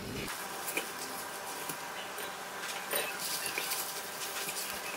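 Quiet sizzling of rice vermicelli and chili spice paste frying in a wok, with soft scraping and a few light taps of a spatula as the noodles are stirred and tossed.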